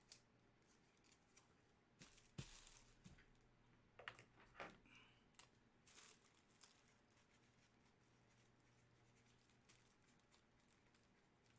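Near silence: faint room hum with a few soft clicks and rustles of trading cards and their plastic holders being handled, around two seconds in and again around four to five seconds in.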